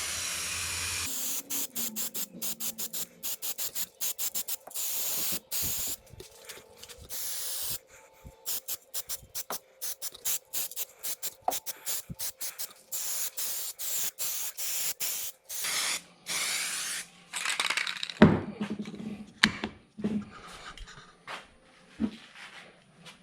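Primer being sprayed in many short hissing bursts with a few longer passes, as a second coat goes on. A few sharp knocks come late on.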